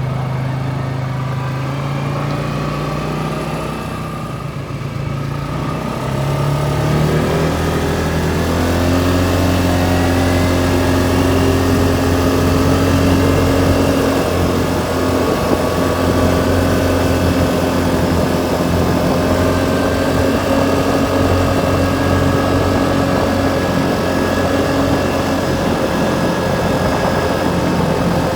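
CFMoto four-wheeler (ATV) engine running while being ridden. It speeds up about six seconds in, then holds a steady cruise.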